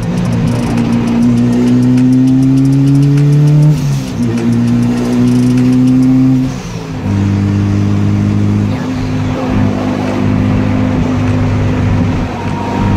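Turbocharged Acura Integra's four-cylinder engine, heard from inside the cabin, pulling up through the revs twice. The pitch drops sharply at a gear change about four seconds in and again at about seven seconds, then the engine runs steadily at cruise.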